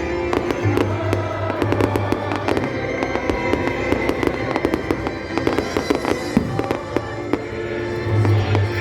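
Fireworks bursting and crackling in rapid, irregular succession, mixed with music that has a steady bass line.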